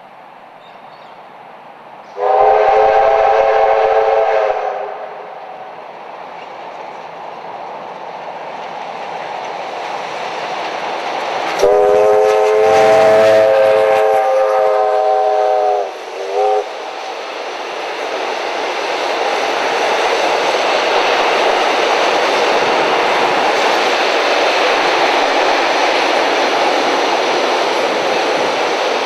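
Steam locomotive whistle sounding two long blasts about ten seconds apart, the second followed by a short toot. After that comes the steady rumble and wheel clatter of the passenger train rolling across a steel girder bridge, growing louder and then holding.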